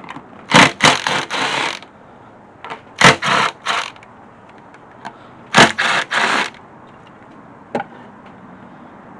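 Three short bouts of loud scraping, clattering tool noise, each opening with a sharp hit, followed by a single click near the end.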